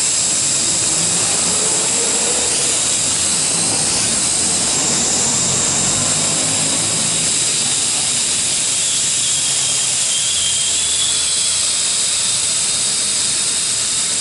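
L6036 toy quadcopter's four small motors and propellers running while it hovers and flies close by: a steady high-pitched whine over a rushing hiss.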